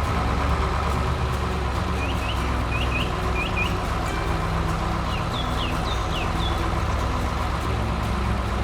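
A heavy construction vehicle's engine running steadily, with a string of short bird chirps in the middle.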